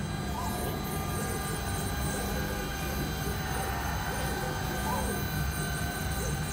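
Twin-spindle CNC router running steadily, both spindles cutting into a sheet as they engrave. A constant whine with several high tones over a low hum.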